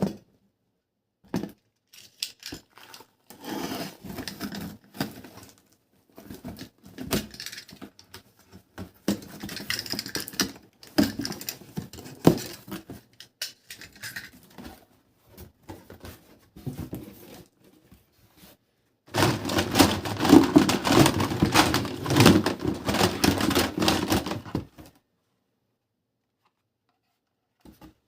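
Plastic toy packaging and parts being handled: scattered clicks, knocks and rustles, then about six seconds of denser, louder rustling and scraping about two thirds of the way through.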